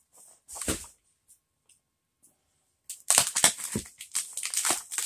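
Cardboard boxes being handled and pulled open: a short scrape under a second in, a pause, then from about three seconds in a run of scraping, crunching and tearing of cardboard.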